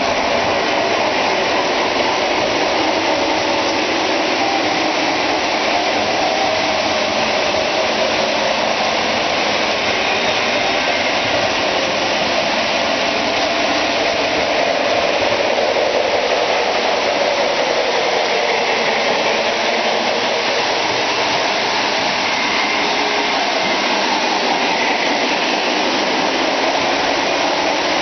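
Several Lionel O-gauge model trains running at once on three-rail track: a steady whir of electric motors and rolling wheels, with a slow dip and rise in pitch about halfway through.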